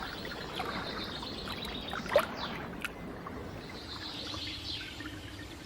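Gentle water ambience, water lapping and trickling, with a faint high flickering chirp near the start and again about four seconds in, and one short sharp sound about two seconds in.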